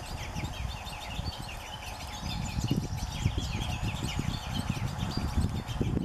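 Common crossbills calling: many short, quick chirps overlapping, over a low rumble.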